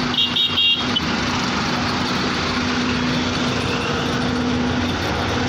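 Bus engine running at idle, a steady low hum. A quick run of short, high beeps sounds within the first second.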